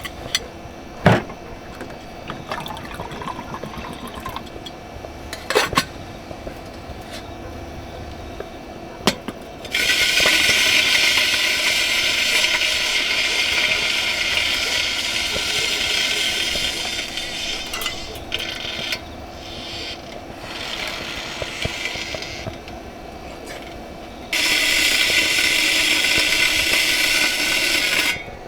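Water pouring steadily into a container twice: first for about twelve seconds, then for about four seconds near the end, each time starting and stopping abruptly. A few clinks and knocks of handled gear come before the first pour.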